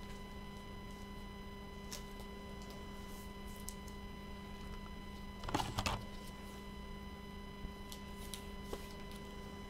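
Steady electrical hum with a set of high whining tones. A few faint ticks sound over it, and about five and a half seconds in there is a brief louder noise lasting about half a second.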